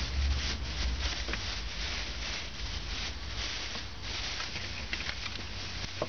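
Thin clear plastic bag crinkling and rustling in irregular crackles as hands rummage inside it among cubes of pressed seed-cake bait.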